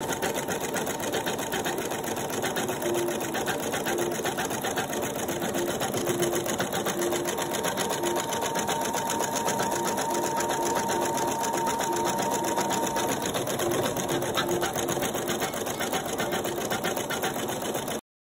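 Husqvarna Viking Designer Diamond embroidery machine stitching at speed: a steady, very fast needle rattle that cuts off suddenly near the end.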